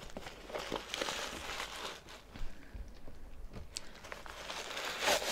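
Handling noise from a sneaker being turned in the hands: faint irregular rustling and scratching of fingers over its suede and mesh upper, with a few light ticks and a somewhat louder scrape near the end.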